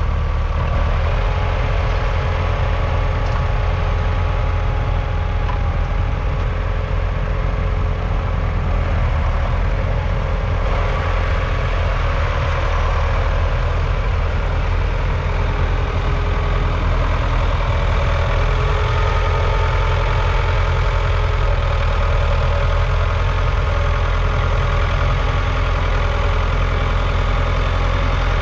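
Ford 6410's 4.4-litre four-cylinder diesel engine running steadily at close range.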